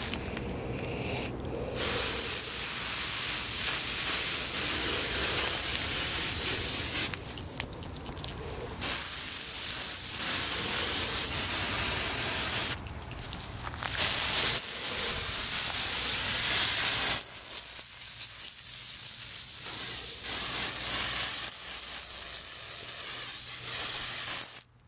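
Aerosol can of grout sealer spraying: long hissing sprays of a few seconds each with short pauses between, then a quick run of short spurts near the end.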